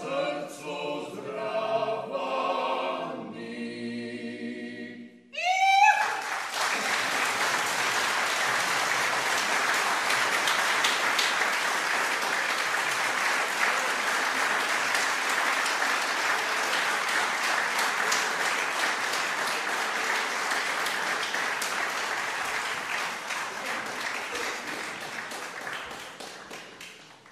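Mixed five-voice a cappella group singing the closing bars of a Slovenian folk song. About five seconds in the singing stops and audience applause breaks out, opening with a loud rising cry, then goes on steadily and fades out near the end.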